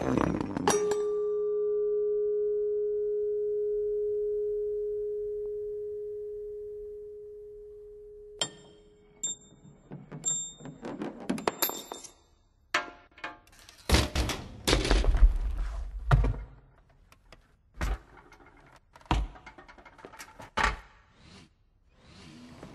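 Metal car parts setting each other off in a chain reaction. First a struck part rings out with one clear tone that slowly fades over about eight seconds. Then comes a run of small clicks, knocks and high pings as parts tap and roll into one another, with a heavier rumble of something rolling and knocking about two-thirds of the way through.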